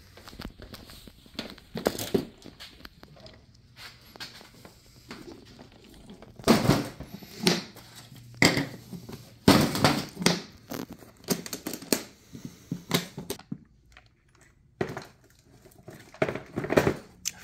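Rummaging through a plastic toolbox: plastic bags crinkling and tools and small parts shifting and knocking, in irregular bursts that are loudest in the middle.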